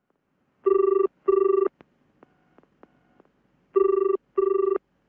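Telephone ringing in a double-ring pattern: two short rings, a brief gap, and the pair repeats about three seconds later, a call ringing out before it is answered.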